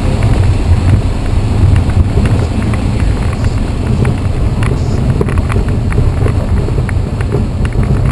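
Steady low rumble inside the cabin of a Piper single-engine light aircraft during its landing rollout on the runway, engine throttled back to idle with the propeller slowed.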